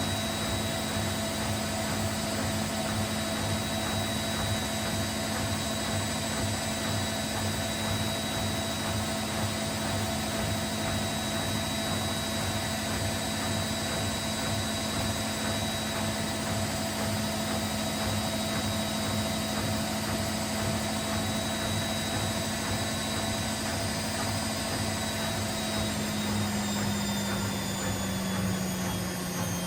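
Washing machine in its high-speed spin, with a steady motor whine over a regular low throb from the drum. Near the end the whine begins to fall in pitch as the spin starts to slow.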